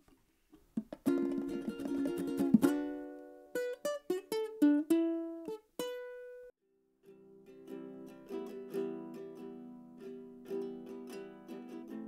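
Background music on a plucked string instrument: a strummed passage, then single notes that ring out, a short pause about six and a half seconds in, then a steadier run of picked notes.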